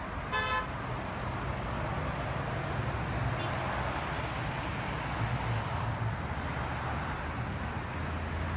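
Steady road traffic noise with a low engine hum, and one short beep about half a second in.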